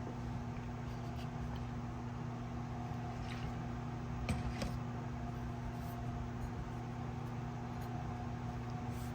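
Steady electrical or machine hum with a few faint light ticks a few seconds in.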